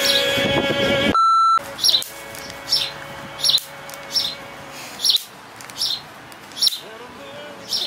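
A single steady bleep, about half a second long, cuts off background music about a second in. After it a bird chirps over and over, about once every three-quarters of a second.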